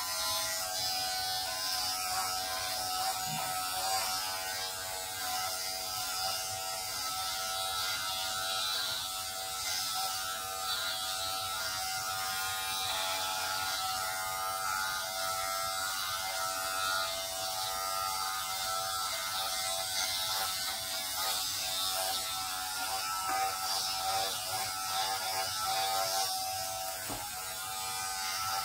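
Electric hair shaver switched on and running steadily as it shaves a man's head bald, with a constant buzz.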